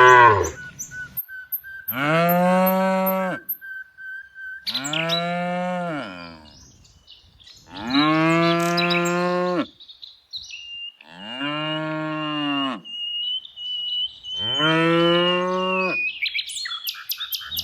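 Cattle mooing over and over: about five long moos of roughly two seconds each, separated by short pauses, each rising slightly in pitch and then falling away.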